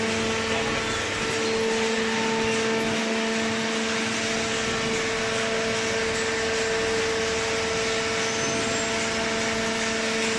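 Hydraulic cardboard baler's power unit (electric motor driving the hydraulic pump) running with a steady hum and a constant tone.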